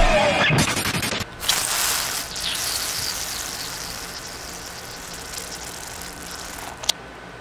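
Anime fight-scene sound effects: a hissing rush comes in about a second and a half in and slowly fades away, with a single sharp click just before the end.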